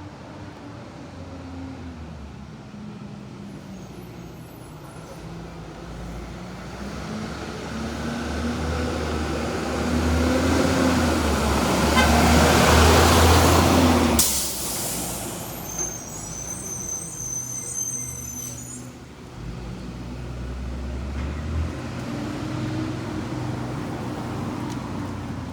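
2003 Blue Bird International 3800 school bus driving past: its engine grows louder as it approaches, is loudest about twelve to fourteen seconds in, then falls away abruptly as it passes.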